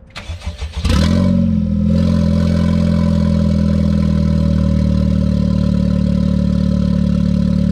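Honda Civic Type R FK8's turbocharged 2.0-litre four-cylinder starting about a second in, flaring briefly, then idling steadily. The exhaust is open at the catless downpipe, with the front pipe and the rest of the system removed.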